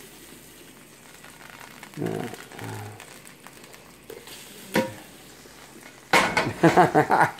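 Hot cooking oil faintly sizzling in a frying pan while the excess is poured off, with one sharp clink of the pan a little before the end. A man's voice comes in loudly for the last second or so.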